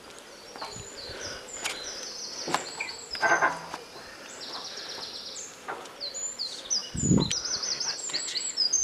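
Birds singing at dawn: many short, high whistled and trilled notes from several birds at once. Scattered clicks and knocks sound under the song, with a low thump about seven seconds in.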